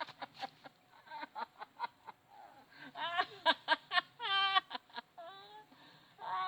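Sheep bleating: a quick run of short calls, then from about three seconds in several longer, wavering bleats, one more starting near the end.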